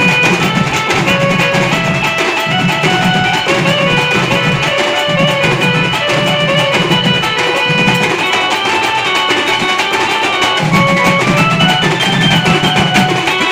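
A drum band with many barrel drums, beaten with sticks, plays a folk tune. A melody of short pitched notes runs over a steady pounding drum beat.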